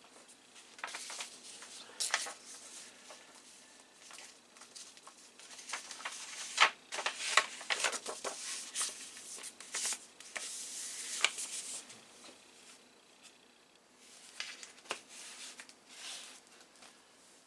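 Floppy disks and their packaging being handled on a desk: scattered light clicks, taps and rustles, busiest in the middle of the stretch and sparse near the end.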